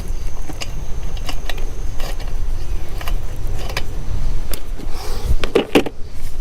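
Scattered clicks, clinks and light knocks of small metal and plastic parts being handled as a two-stroke engine is reassembled, over a steady low rumble. A few louder knocks come a little after five seconds in.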